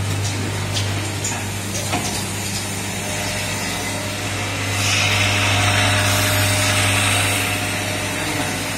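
Automated assembly machinery running with a steady low hum and a few light clicks in the first two seconds. A louder hiss rises about five seconds in and dies away about two and a half seconds later.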